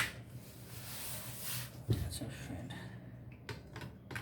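Handling noises as a cooling fan and its connector are fitted to the motherboard: a sharp click, a rustle, a low knock about two seconds in, then a few light clicks near the end, over a faint steady low hum.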